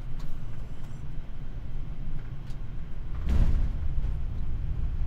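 Steady low rumble of airflow and engines in a Boeing 787-9 cockpit as the airliner lands, with one brief heavy thump a little over three seconds in as the landing gear touches down on the runway.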